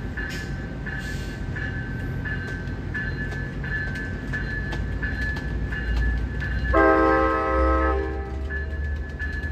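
Railroad crossing bell dinging steadily, just under two strikes a second. About seven seconds in, the passenger train's horn sounds one chord blast of about a second and a half, the loudest thing heard, while the train's low rumble grows underneath.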